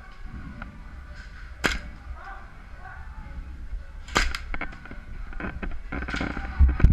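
Airsoft guns firing: a sharp single crack about a second and a half in, another near the middle, then a run of quicker, lighter snaps near the end, over a steady low rumble.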